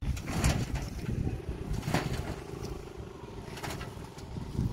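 A campaign truck on fire: a low rumble from the blaze with a few sharp cracks and pops, the loudest about half a second and two seconds in.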